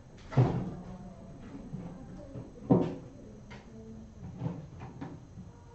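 Two loud knocks about two and a half seconds apart, with lighter taps and clicks between and after them.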